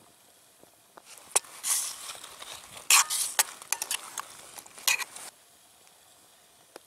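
Metal spoon stirring kidney beans in a steel cup, clinking and scraping against the side. The stirring starts about a second in and stops a little after five seconds.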